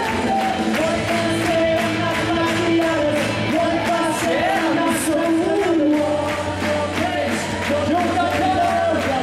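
Amplified male voices singing a rock song, two parts held in harmony over a steady, driving percussive beat.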